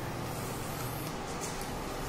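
Melted butter sizzling steadily in a nonstick frying pan on an induction cooktop, with a faint steady low hum beneath.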